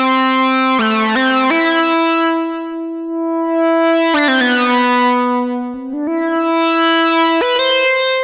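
Gforce Oddity 2 software synthesizer, an ARP Odyssey emulation, playing held notes that change pitch a few times. The filter sweeps open and closed, making the tone brighter and buzzier about four seconds in and again near the end.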